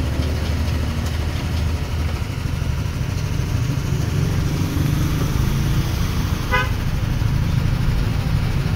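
An engine running steadily with a low rumble, and a single short horn beep about six and a half seconds in.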